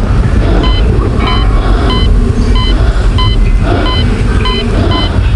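Halloween sound-effect track: a loud, steady low rumble with a rough, noisy layer above it, cut through by short electronic beeps repeating about two to three times a second.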